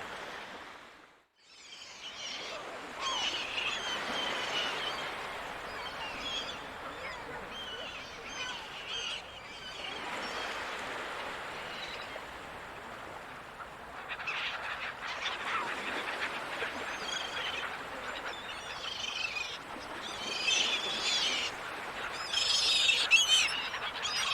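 Gulls calling repeatedly over a steady background rush of the sea, with the calls growing busier and louder near the end. The sound drops out briefly about a second in.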